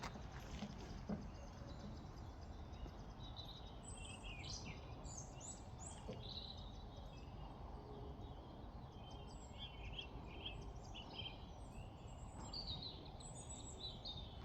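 Small birds chirping and twittering from about four seconds in, over a faint steady low rumble of outdoor background noise.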